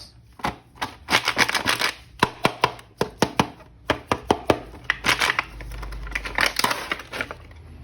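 Hands opening and handling plastic toy packaging: crinkling rustles with many quick clicks and taps.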